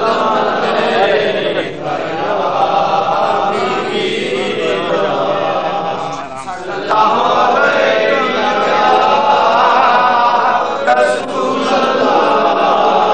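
A crowd of men chanting together in devotional unison, many overlapping voices, dipping briefly about six seconds in before coming back louder.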